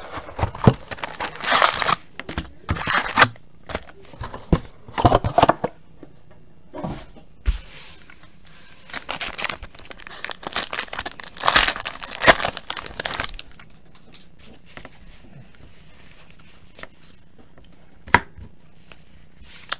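Foil trading-card pack wrappers being torn open and crinkled by hand, in repeated bursts of tearing and rustling. Quieter handling of the cards follows, with one sharp click near the end.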